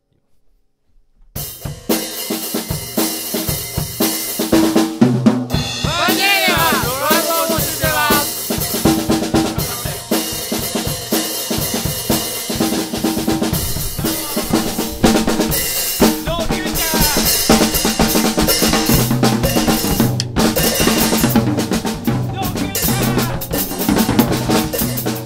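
Rock music driven by a full drum kit, with kick, snare and rimshot strokes under low bass notes and higher notes that slide up and down. It starts suddenly after about a second and a half of near silence.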